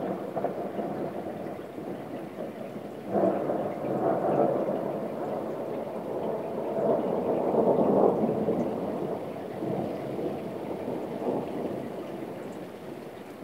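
Rolling thunder over steady rain: a rumble at first, then a sudden crack about three seconds in that rolls on, swells to its loudest near eight seconds and slowly dies away.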